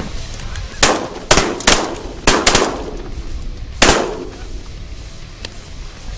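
A volley of shotgun fire from several hunters: about six shots in under three and a half seconds, a few coming close together, each ringing out briefly after the blast.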